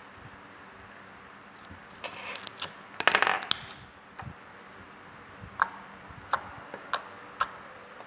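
Mint-milk slime being squeezed and poked by hand, making crisp popping clicks. A quick run of pops comes about two to three and a half seconds in, followed by single pops roughly every half second to second.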